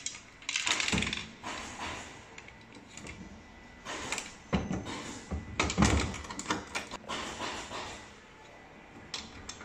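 Plastic and metal clicking and clattering of a coin acceptor being handled and slotted into the coin-mechanism panel of a kiddie ride. It comes in several short bursts, the loudest a little over halfway through.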